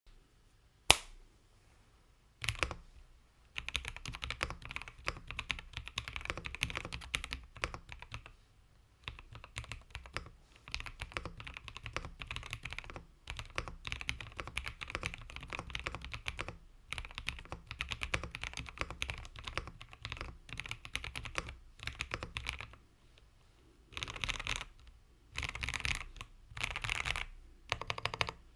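Typing on a JamesDonkey J2 75% mechanical keyboard with Gateron Milky Yellow Pro V2 linear switches. There is a sharp single key click about a second in, then fast continuous typing with brief pauses, ending in a few short bursts of keystrokes.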